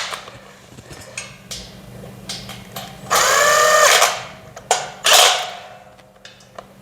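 Cordless impact driver running screws: light clicks of parts being handled, then the driver spins up with a rising whine for about a second, followed by two shorter bursts near the end.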